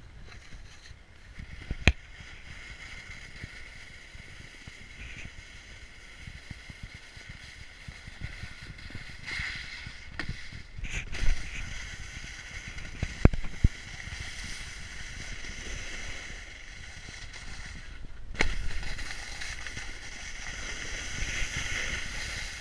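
Steady scraping hiss of a downhill ride on packed snow, heard close on a body-worn action camera with wind on the microphone. Several sharp knocks stand out, about two seconds in, around eleven and thirteen seconds, and near eighteen seconds.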